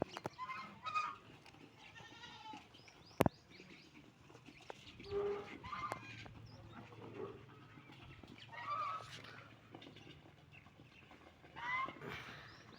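Ducks quacking, a short call every two to three seconds, with a sharp click about three seconds in.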